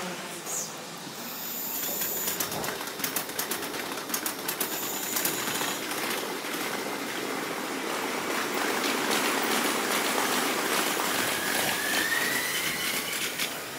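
Kintetsu and Hanshin electric trains running on the station tracks, heard sped up five times: a rapid run of clicks, then a louder steady rush with a rising whine near the end.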